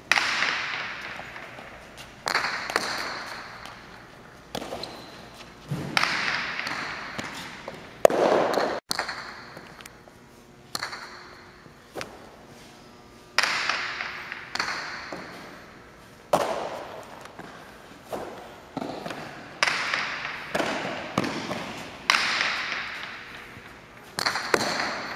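Jai alai pelota cracking against the court's walls and floor during a rally, a sharp hit every one to three seconds, each ringing out in a long echo in the big hall.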